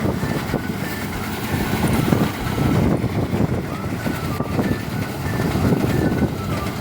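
Motorised rice threshing machine running, a loud, steady, uneven mechanical drone.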